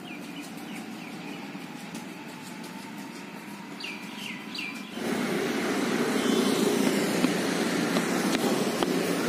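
Birds chirping in short, falling calls over a quiet street. About five seconds in, this gives way to louder, steady roadside traffic noise.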